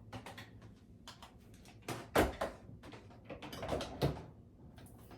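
Irregular knocks and rustling of objects being handled, with the loudest knocks about two seconds in and again about four seconds in.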